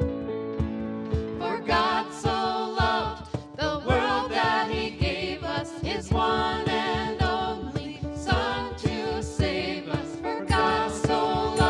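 A small church worship team of men and women singing together into microphones, accompanied by a grand piano and an acoustic guitar.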